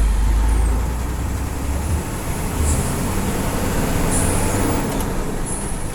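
A bus running: a low engine and road rumble, heaviest over the first two seconds, with a few short high hisses near the middle and end.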